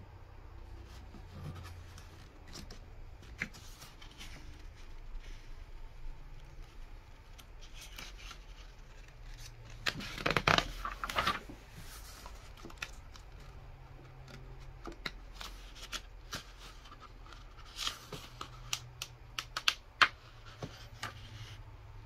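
Paper pages of an instruction booklet being handled and turned. Soft rustling and small clicks, with a louder flurry of paper rustle about ten to eleven seconds in and a few sharp crinkles a little before the end.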